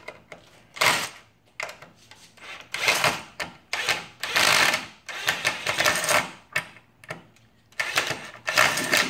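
DeWalt cordless impact driver hammering in several short runs, each a second or less, driving long screws out of a wooden shipping crate.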